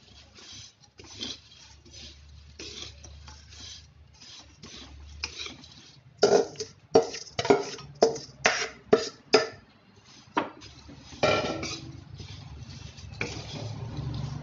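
Metal spatula stirring and tossing dry poha, nuts and makhana in a metal kadai, with rustling and scraping throughout. About six seconds in comes a run of sharp knocks of the spatula against the pan, about two a second, and one more a couple of seconds later.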